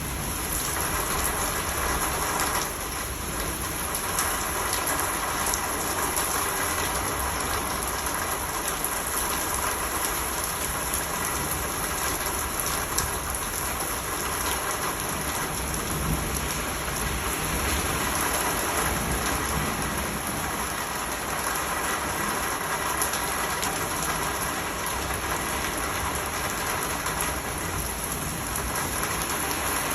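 Summer rain falling steadily, drops pattering on a surface in an even hiss.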